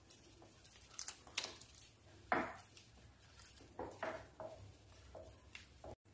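Silicone spatula stirring thick semolina batter in a glass bowl: faint, irregular wet squelches and scrapes.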